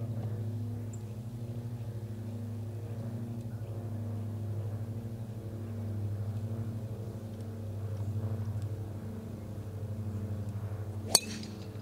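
A steady low drone of a running engine, with one sharp click near the end.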